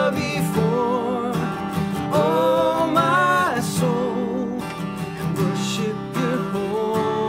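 Worship song performed live: acoustic guitar strumming under a slow sung melody.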